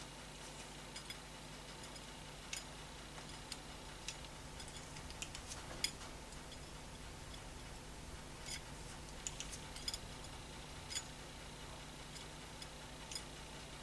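Light, irregular clicks and taps of small parts and tools being handled during piano damper work, about a dozen spread over the stretch, the sharpest about six seconds in, over a faint steady hum.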